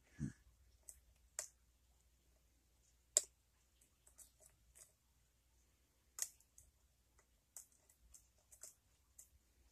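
Lock pick working the pins of a clamped pin-tumbler challenge lock: faint scattered metallic ticks and clicks, with sharper clicks about one and a half, three and six seconds in. A soft low thump comes right at the start.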